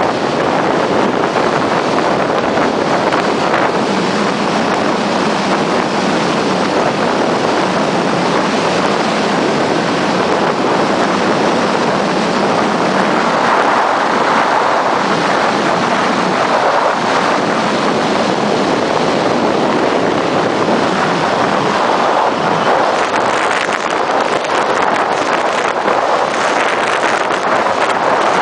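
Steady drive noise of a Scania G420 truck cruising on the highway: a low engine drone under a loud, even rush of wind and tyres on the wet road, with no change in pace.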